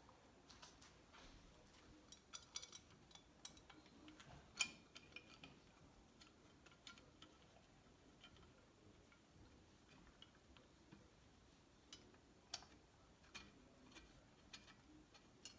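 Near silence with faint, scattered clicks and taps of small metal parts being handled, such as bolts and reed blocks being fitted. One sharper click comes about four and a half seconds in and another near the end.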